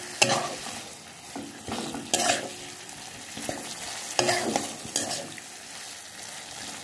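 Marinated chicken being stir-fried in a thick spice paste in a pan: a metal spatula scrapes and turns the pieces every second or two over a steady sizzle.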